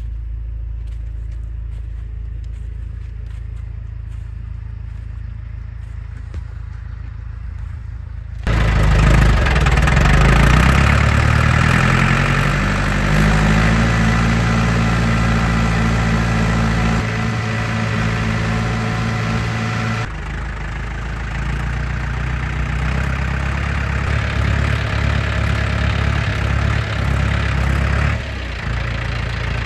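Farm tractor engine running: a steady low hum at first, then suddenly much louder about eight seconds in, its pitch shifting before it settles into a steady idle, with the level dipping near the end.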